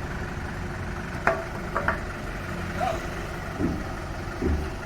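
Woodworking machine's electric motor running with a steady hum, broken by a few short knocks and clicks in the middle of the stretch.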